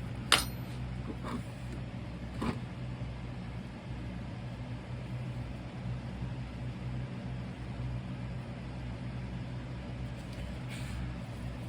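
A steady low machine hum throughout, with a few sharp taps or clicks in the first couple of seconds.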